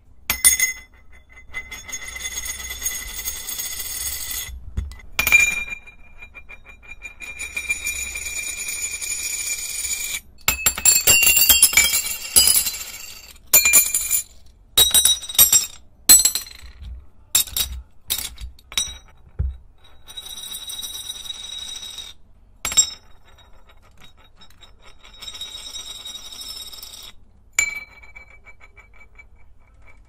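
Metallic Yu-Gi-Oh Metalix tazos spun and dropped on a wooden desk. Each spin gives a steady metallic ringing whir lasting a few seconds, and a busy run of sharp clinks and rattles comes in the middle.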